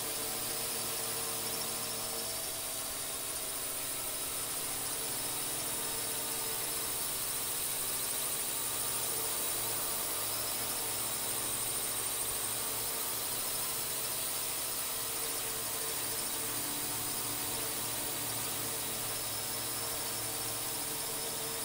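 Steady high-pitched whine and hiss of a quadcopter drone's motors and propellers, with several held tones that waver slightly.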